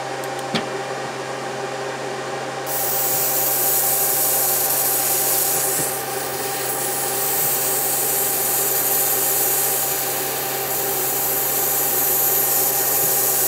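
A 10-watt pulsed DPSS Nd:YAG laser module welding lead onto copper through flux: a steady machine hum with a few steady tones, joined about three seconds in by a hiss that carries on to the end.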